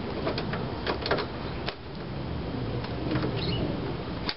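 Hands working the starter-rope guide on a lawnmower handle as it is tightened: a few scattered sharp clicks and rubbing over a steady low rumble.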